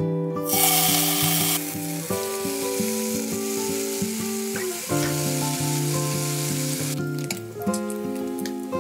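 Bacon strips sizzling in a hot, oiled nonstick frying pan, loudest in about the first second and then a steady sizzle that dies down near the end.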